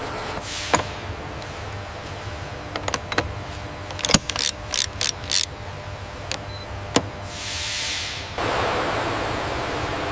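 Scattered sharp mechanical clicks over a steady machine hum, with a quick run of about five ratchet-like clicks about four seconds in. Near the end comes a whoosh, followed by a louder steady hiss.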